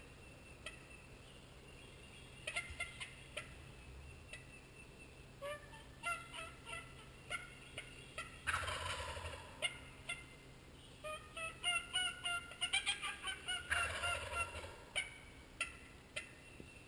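Wild turkey gobbling: two loud rattling gobbles, about eight and fourteen seconds in, with runs of short, sharp calling notes between and around them.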